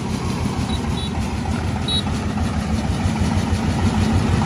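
Single-cylinder diesel engine of a self-propelled rice thresher running steadily as the machine is driven along, a rapid low thudding that grows slightly louder.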